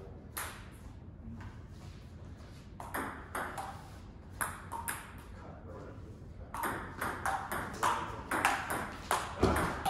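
Table tennis rally: the celluloid-type ball clicking off rubber paddles and bouncing on the table in quick sharp ticks. The hits are scattered at first, then come faster and louder in the last few seconds.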